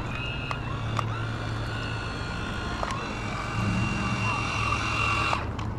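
Steady whine of small electric motors over a low hum, shifting slightly in pitch about a second in and again about three seconds in; it cuts off near the end.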